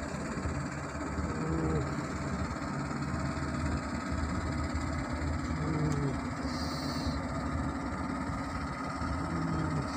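Steady low engine rumble, with faint short voices in the background.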